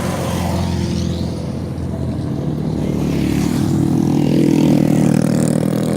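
An engine running steadily, then growing louder and rising slightly in pitch over the second half.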